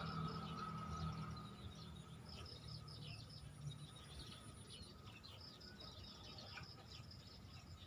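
Faint birds chirping outdoors: quick runs of repeated high notes and short falling calls, over a thin steady high tone that stops about five seconds in.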